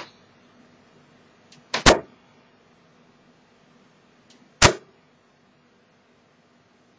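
Two 22-gram tungsten steel-tip darts striking a bristle dartboard, each a short, sharp thud. The first lands about two seconds in and the second nearly three seconds later.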